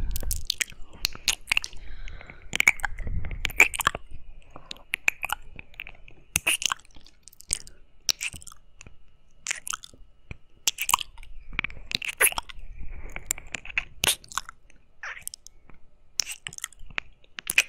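Close-up wet mouth sounds of licking and kissing on a binaural microphone's silicone ear: irregular sharp smacks and clicks, a few each second.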